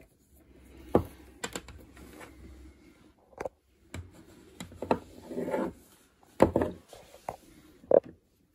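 Power cord and its plug handled on a desk: irregular clicks and knocks with soft rubbing between them, the sharpest two about two-thirds of the way through and near the end.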